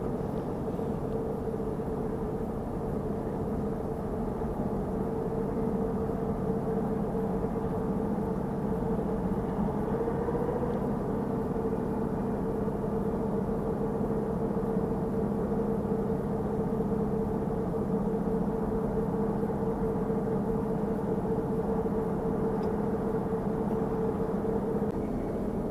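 Steady mechanical drone with a constant low hum that does not change.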